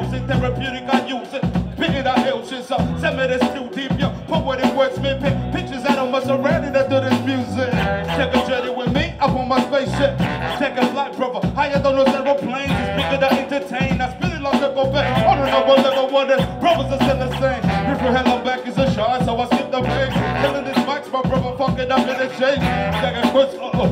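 Live hip hop/groove band music: a steady groove with a choppy, rhythmic bass line under busy melodic lines.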